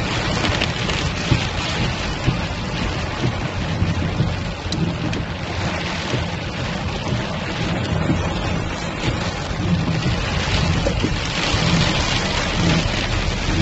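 Heavy rain beating on a car's roof and windscreen, heard from inside the cabin as a dense, steady hiss with a steady low rumble underneath.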